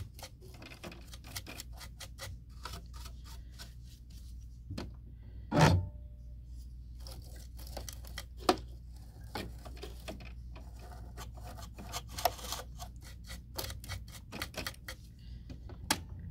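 Bristles of an old half-inch paintbrush scratching and flicking around the metal bobbin race of a Baby Lock sewing machine, sweeping out lint fuzz, in quick irregular ticks and scrapes. A louder knock comes about five and a half seconds in.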